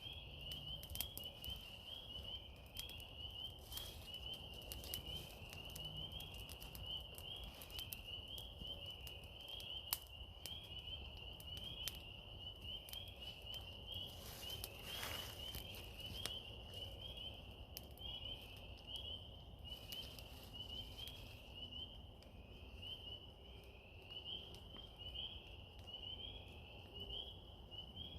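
A steady background chorus of short, high chirping calls, repeated several times a second, with scattered faint ticks and taps under it.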